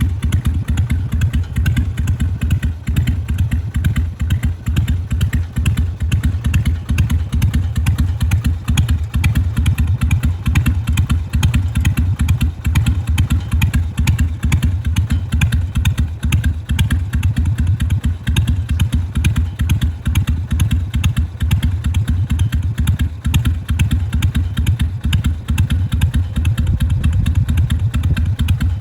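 Carbureted Harley-Davidson Sportster 883's air-cooled 45-degree V-twin idling with its uneven 'potato-potato' lope: a steady stream of low, irregular exhaust pulses that holds an even speed with no revving.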